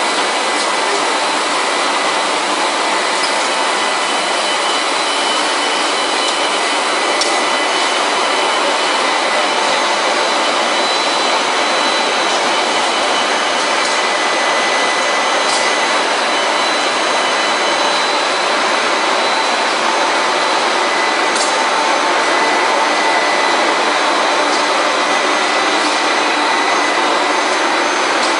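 Textile-finishing machinery running steadily: an even rushing noise with a few steady high tones over it and occasional faint ticks.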